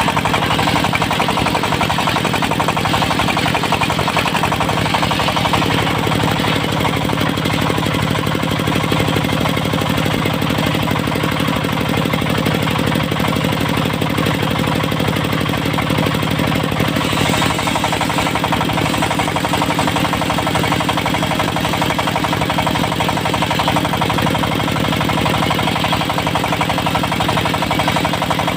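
Diesel engine of a circular-blade sawmill running steadily, a loud, dense, rapid knocking without let-up.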